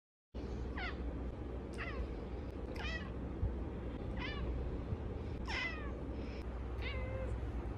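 A cat giving about six short, high-pitched meows, roughly one every second, each sliding down in pitch. A steady low hum runs underneath.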